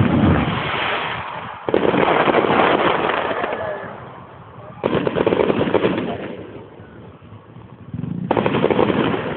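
Aerial fireworks bursting, three sudden bursts a few seconds apart, each followed by a dense rapid crackle that fades over about two seconds.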